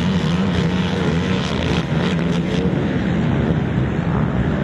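Racing ATV (quad) engines at high revs, their pitch rising and falling as the throttle is worked.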